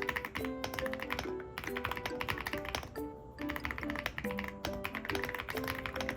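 Background music with a light melody over rapid clicking typical of keys being typed on a mechanical keyboard. The clicking pauses briefly twice.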